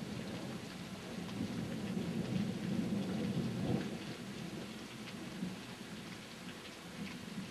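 Rain falling steadily, with a low roll of thunder that builds over the first few seconds, peaks about four seconds in, then fades away.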